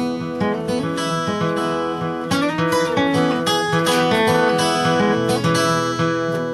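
Acoustic guitar fingerpicked in open D tuning, with ringing notes and a steady bass-and-treble picking pattern.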